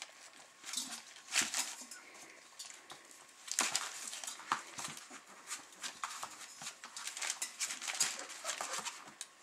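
Young Weimaraner puppies scuffling and playing: scattered scratches and clicks of paws on newspaper and bedding, and a steel feeding bowl knocked about, with small puppy whimpers.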